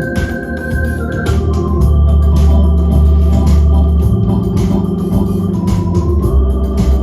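Electronic organ playing sustained chords over a deep pedal bass, with a steady percussion rhythm.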